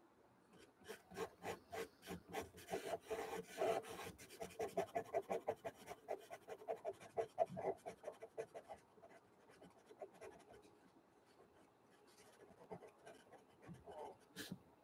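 Pastel pencil scratching across gesso-coated watercolour paper in quick short hatching strokes, several a second, for most of the first nine seconds, then slower, sparser strokes. A single sharp tap comes near the end.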